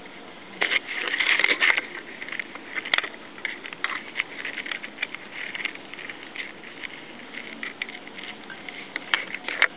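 A kitten's claws scratching and clicking on a hardwood floor as it wriggles and paws. There is a burst of scratching about a second in, then scattered light clicks and scrapes.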